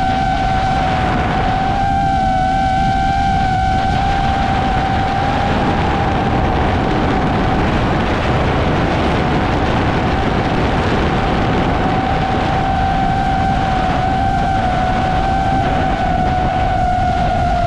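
DJI FPV drone's motors and propellers running with a steady high whine that wavers slightly in pitch, over heavy wind rush on the GoPro's microphone.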